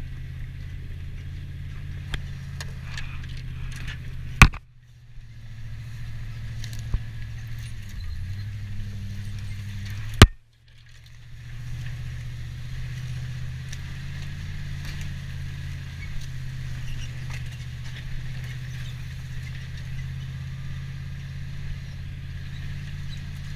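Ford F-150 pickup's engine running steadily, heard from inside the cab as the truck climbs a dirt trail. Two sharp knocks stand out, about four and a half and ten seconds in.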